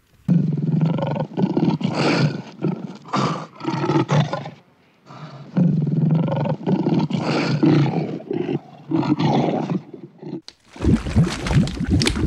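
Lion roaring in two bouts of repeated roars, each about four to five seconds long, with a short pause between them. Near the end the roaring stops and a different, crackling sound takes over.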